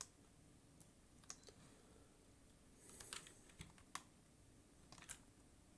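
Faint, scattered clicks of a computer keyboard and mouse, with a small cluster of them about three seconds in, over near silence.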